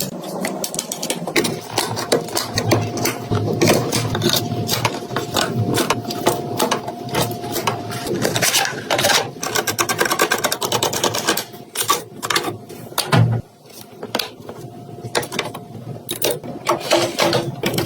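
Rapid, dense mechanical clicking and rattling from a small mechanism, with a faint steady tone underneath; it dips briefly twice in the second half.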